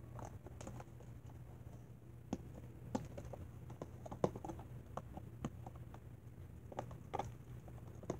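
A utensil stirring a slime mixture in a cup, giving irregular light clicks and taps as it knocks against the cup. The sharpest tap comes about four seconds in.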